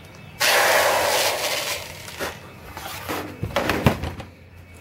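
Handling noise from a corded power tool picked up and moved on a metal tabletop. A sudden scraping rush about half a second in fades over a second or two, then a run of knocks and clunks near the end as the tool is set down.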